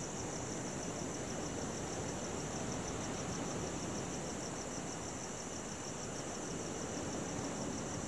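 Crickets chirping in a fast, even pulse, over a steady wash of ocean surf.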